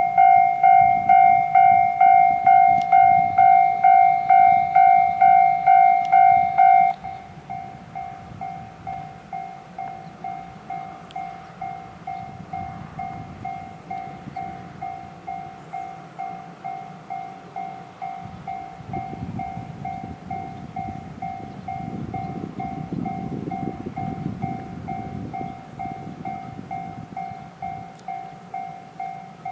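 Japanese level-crossing electronic warning bell ringing, a clanging tone repeating about twice a second; about seven seconds in it drops sharply in volume and keeps ringing. A low train rumble swells in the background in the second half.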